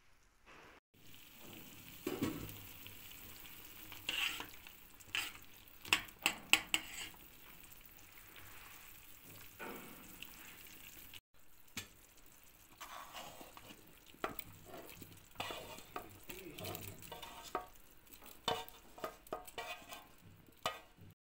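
A pot of stew simmering with a steady bubbling hiss, while a metal spoon stirs it and clinks sharply against the steel pot, loudest a few seconds in. In the second half, small floured meatballs are tipped from a metal bowl into the bubbling broth, giving a run of small splashes and knocks.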